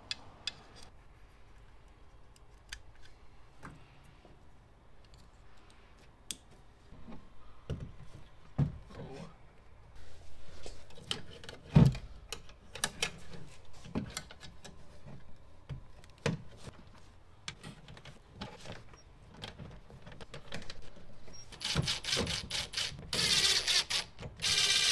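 Clicks and knocks of a 6x9 speaker, spacer and wiring being handled against a truck's metal door, with one louder knock about halfway. Near the end a Ridgid brushless cordless impact driver runs in fast rapid hammering strokes, driving the speaker's mounting screws.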